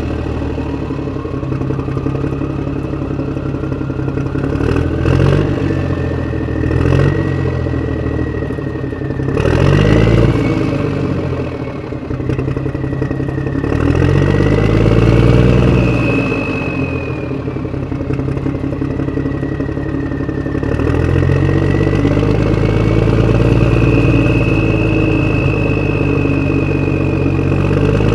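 Vehicle engine sound revving up and down several times, with a thin high whine that slowly rises and falls in pitch alongside it.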